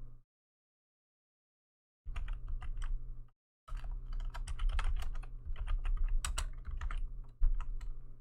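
Typing on a computer keyboard: a short burst of keystrokes, a brief pause, then a longer rapid run entering a command line, with one harder keystroke near the end.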